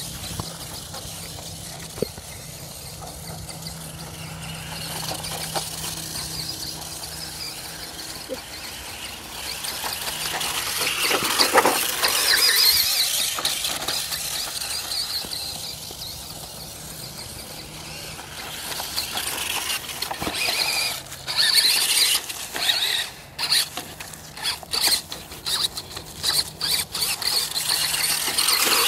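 Toy RC car's electric motor whining as it drives over dry grass, growing louder about ten seconds in, then coming in short stop-start bursts in the last third.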